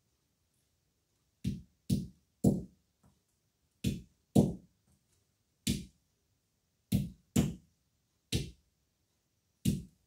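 A hand-held stone knocking green olives against a flat stone, cracking them one at a time. About ten dull knocks come at an uneven pace, several in quick pairs.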